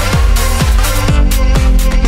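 Electronic dance music with a steady kick drum, about two beats a second, under sustained synth chords.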